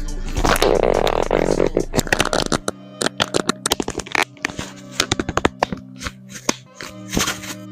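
Packaging being handled and opened during an unboxing: a dense run of crackles, rustles and taps, busier in the first couple of seconds, over steady background music.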